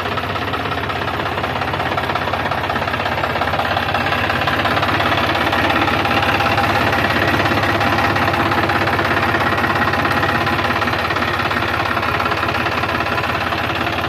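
Diesel engine of a JCB 3DX backhoe loader running steadily with a fast knocking beat, growing a little louder through the middle.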